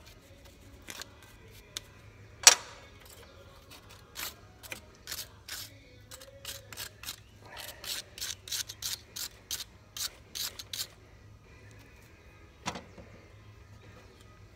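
Small wire brush scrubbing corrosion off a battery cable clamp in short quick strokes, about four a second in the middle stretch. There is a sharp metallic knock about two and a half seconds in and another near the end.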